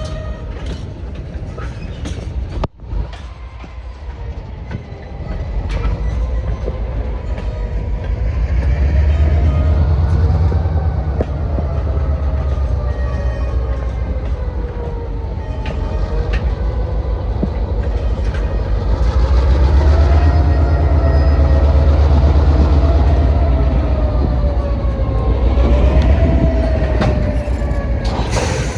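Freight train cars rolling by with a heavy low rumble and wheels clicking over the rails. A thin metallic squeal wavers slowly up and down in pitch over the rumble, which swells louder twice.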